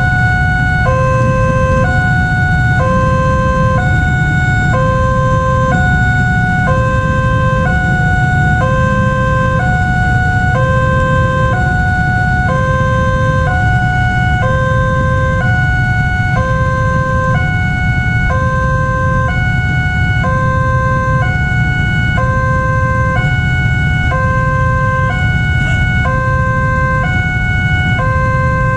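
Railway level-crossing alarm sounding from the crossing's horn loudspeaker: an electronic two-tone signal switching between a lower and a higher tone about once a second, repeating steadily. It warns that a train is approaching the crossing.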